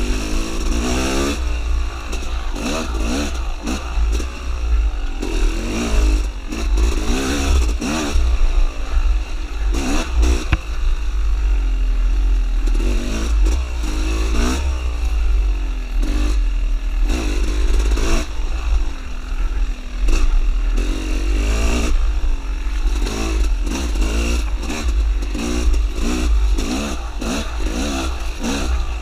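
Dirt bike engine revving up and down over and over as the throttle is opened and closed, with a constant low rumble underneath.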